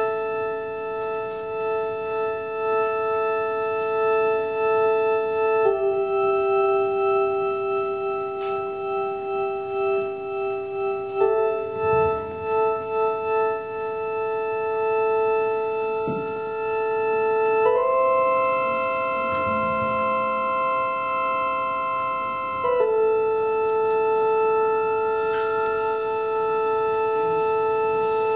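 Live ensemble music: long, steady held chords that move to a new chord about every five or six seconds.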